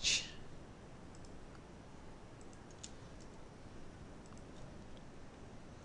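A few faint, scattered clicks of a computer mouse and keyboard.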